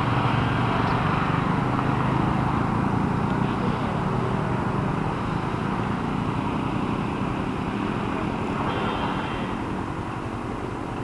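Yamaha Sniper 155's single-cylinder engine running at low speed in city traffic, heard from the bike itself with the noise of surrounding traffic. The sound eases off gently in the second half as the bike slows behind the vehicle ahead.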